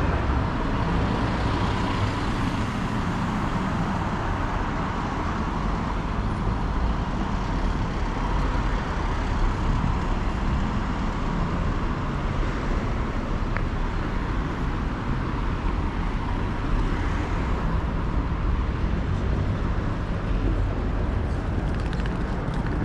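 Steady road traffic noise, a continuous rumble of passing cars with no single event standing out.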